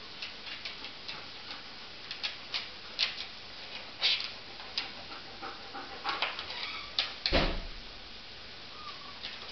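A series of irregular light clicks and taps, with a heavier thump about seven seconds in.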